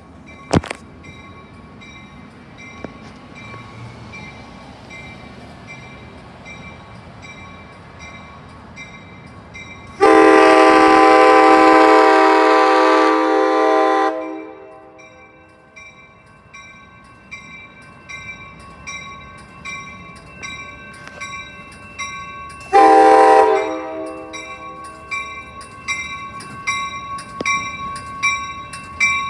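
A passing bilevel passenger train led by a cab car sounds its multi-tone horn: one long blast of about four seconds, then a short blast several seconds later. Between and after the blasts the wheels clack in a regular rhythm over the rail joints, louder as the cars roll past, while a grade-crossing bell pulses steadily underneath.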